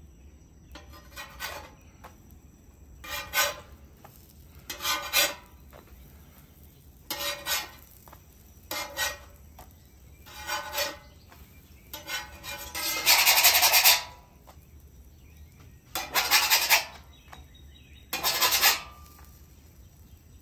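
Metal spatula scraping on the steel griddle top as pancakes are flipped one after another: about a dozen short scrapes a second or two apart, with one longer scrape a little past the middle.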